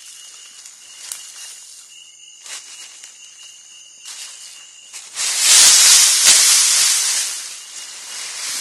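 African forest elephant blowing a loud rush of air from its trunk straight onto the trap camera's microphone, starting about five seconds in and lasting about two seconds, with quieter rustling of its trunk against the camera before it.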